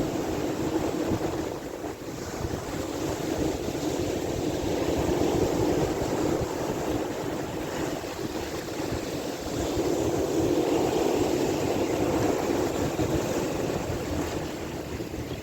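Sea waves washing steadily, swelling louder about a third of the way in and again later, with wind buffeting the microphone.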